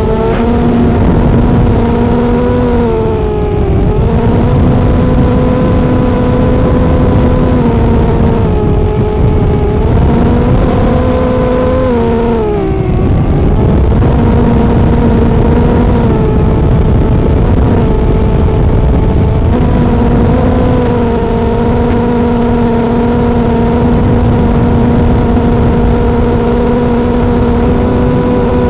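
Whine of an FPV racing quadcopter's Tiger brushless motors and propellers, loud and rough, its pitch dropping and climbing back with the throttle several times in the first half, then holding fairly steady.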